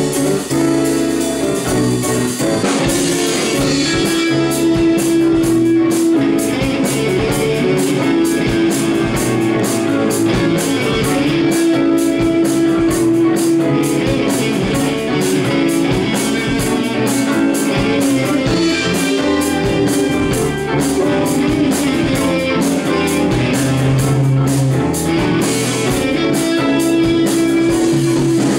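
Live band playing an instrumental: electric guitars over bass, keyboards and drum kit, with dense cymbal strokes throughout.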